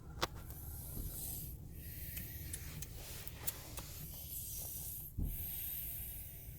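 Snoring: long, breathy rasping breaths with short pauses between them, and a soft thump about five seconds in.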